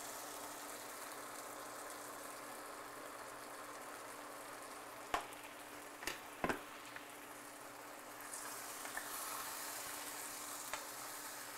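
Beaten eggs sizzling as they hit a hot pan of cooked nopales: a steady frying hiss, broken by a few sharp knocks near the middle.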